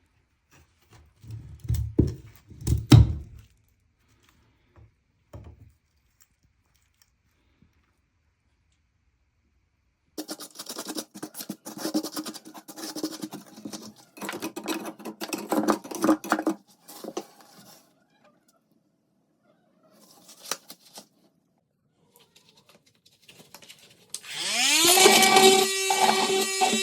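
A few heavy knocks, then stretches of scraping, clattering tool work, typical of hand work on a toilet flange. Near the end electric guitar music starts with a rising chord and strumming.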